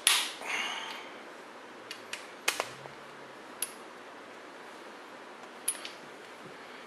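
Half-inch torque wrench and socket on the cylinder head bolts of a Mopar 440 big-block being torqued to 70 foot-pounds. A loud metal clank with a brief ring comes at the start, then a few separate sharp clicks follow over the next several seconds.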